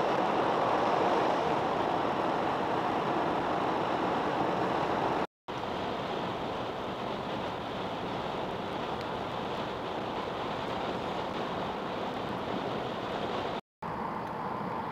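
Steady road and tyre noise heard from inside a moving car at highway speed, broken twice by a split second of silence.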